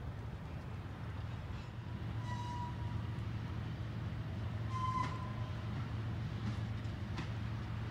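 Freight train rolling past with a steady low rumble of wheels on rail. Brief high-pitched squeals come about two seconds in and again about five seconds in, with a few sharp clicks.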